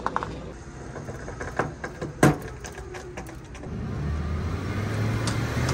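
Pickup truck engine revving up under load as it pulls on a strap, the hum building over the last two seconds. A single sharp knock comes a couple of seconds in.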